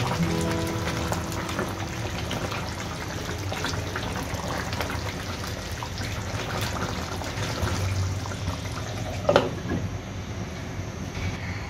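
Beef curry simmering and bubbling in a nonstick pan as a silicone spatula stirs through it, with small scrapes and clicks. About nine seconds in, a glass lid knocks onto the pan with a short ring.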